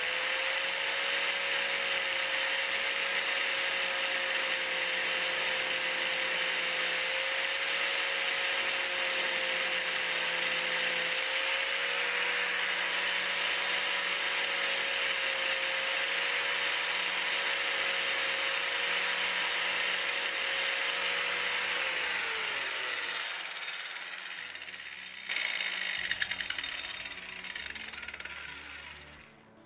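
Electric angle grinder grinding down the head of a motorcycle drive-chain pin, a steady loud grinding hiss over the motor's even whine. About 22 seconds in the grinder is switched off and its whine falls away as it spins down.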